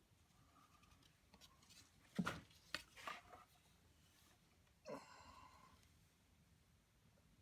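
Quiet handling noises: a few knocks and clicks about two to three and a half seconds in, then a short squeaky scrape about five seconds in, over near-silent room tone.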